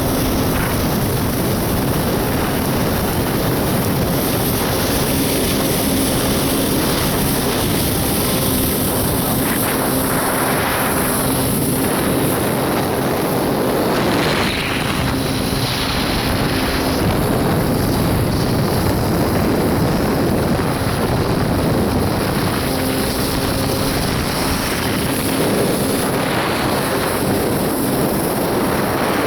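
Two-stroke engine of a 1993 Kawasaki 650SX stand-up jet ski running under way, its steady engine note mixed with a loud continuous rushing noise.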